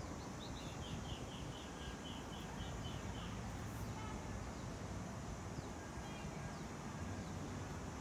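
Outdoor ambience with a steady low background rumble, over which a small bird gives a quick run of about ten short high chirps in the first three seconds, then a few fainter calls later.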